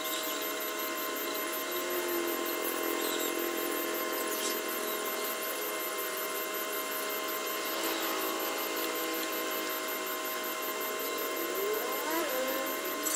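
A steady machine-like hum holding several fixed tones, with a few faint clicks. Near the end a short whine rises and falls.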